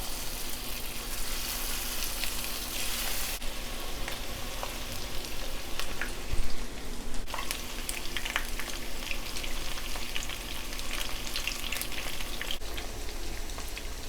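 Shell-on shrimp shallow-frying in hot canola oil in a wok: a steady sizzle thick with small crackling pops. A brief louder knock comes about six seconds in.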